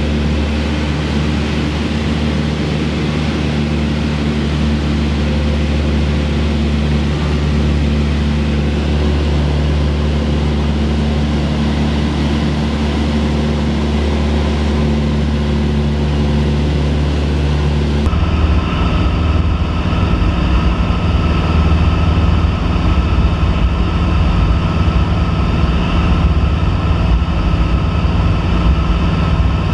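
Cessna 172P's four-cylinder Lycoming engine and propeller droning steadily in flight, heard inside the cabin. About eighteen seconds in the drone turns abruptly rougher and noisier.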